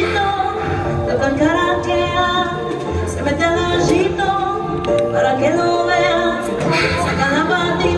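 Music with a voice singing long held and sliding notes over a steady bass line.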